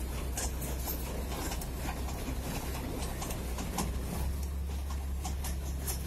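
Passenger train running along the line below, heard from a distance: a steady low rumble that strengthens about four seconds in, with scattered light clicks.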